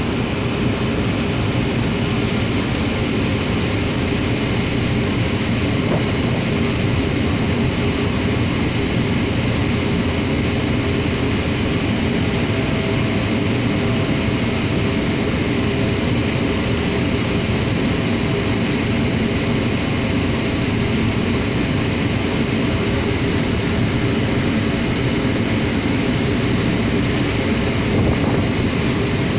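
Steady loud drone of a car ferry's engines and machinery heard from the open upper deck, an even rumble with a couple of faint steady tones running through it.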